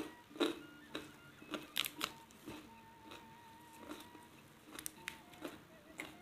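Close-miked eating sounds: scattered crisp crackles and wet clicks as a fresh lettuce leaf is torn and folded by hand and chewed. The sounds are faint, with a few sharper snaps about half a second and two seconds in.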